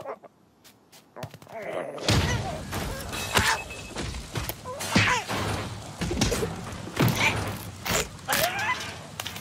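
Cartoon brawl sound effects: about two seconds in, after a near-quiet pause, a dense run of thumps and knocks breaks out, mixed with the cartoon birds' short squawking cries.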